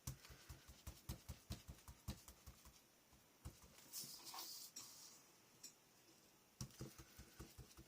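Ink being dabbed through a butterfly stencil onto paper with a blending tool: soft, quick taps about five a second, pausing in the middle and starting again near the end.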